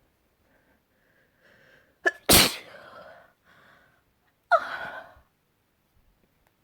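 A person sneezing twice, about two and a half seconds apart, with quiet breaths leading into each. The first sneeze is the louder and sharper of the two.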